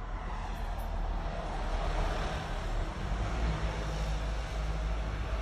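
Road traffic from a vehicle passing on the street: a steady low rumble with a hiss that swells about two seconds in.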